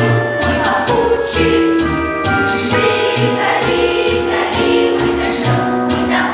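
A choir singing over accompanying music with a steady beat and percussion.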